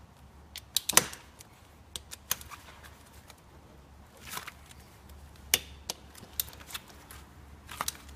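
Metal clicks and clinks of a socket on a long extension being fitted onto the cylinder head bolts of a Kia Picanto and turned by hand, on the final tightening pass. A sharp clack about a second in is the loudest, followed by scattered lighter clicks at uneven intervals.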